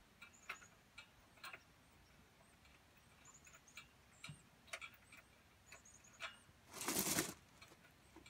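Faint sharp clicks, roughly one a second, from hands working the bolts and brackets of the side steps under the truck, with brief high bird chirps in between. A louder rustle lasting about half a second comes about seven seconds in.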